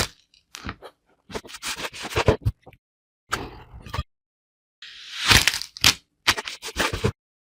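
Kinetic sand being cut and crushed, giving crisp crackling crunches in about five separate bursts with silence between.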